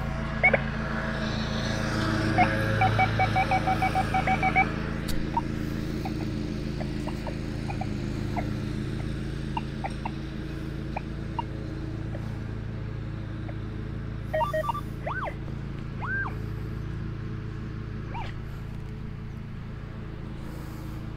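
Lawn mower engine running steadily. About three seconds in comes a quick run of short high beeps, and a few brief chirps follow later.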